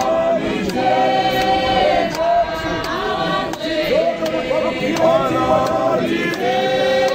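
A large congregation of many voices singing a hymn together, holding long notes in phrases.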